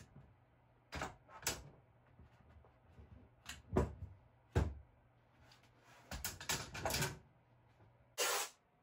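Bar clamps being released and lifted off a glued block of MDF and set down on a wooden bench, making a series of clicks and knocks. The two loudest knocks come a little under a second apart near the middle, a quick cluster of rattles follows about six seconds in, and a short scrape comes near the end.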